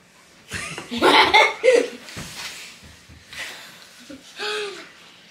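Children laughing, loudest from about half a second to two seconds in, then a few softer laughs and vocal sounds.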